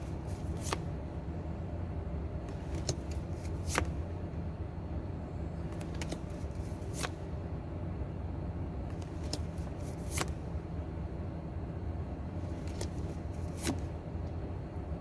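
Pokémon trading cards being flicked through one at a time: short crisp snaps, often two close together, every few seconds, over a steady low hum.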